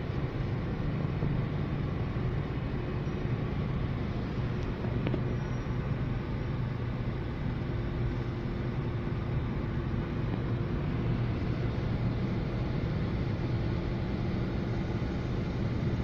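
Steady low rumble of a traffic jam heard from inside a car's cabin: the car's own engine and the vehicles around it idling and creeping forward.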